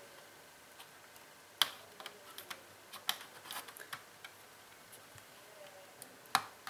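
Scattered small, sharp clicks and taps of plastic and metal parts as a laptop battery pack and its connector are fitted into the opened chassis, about nine in all at irregular intervals.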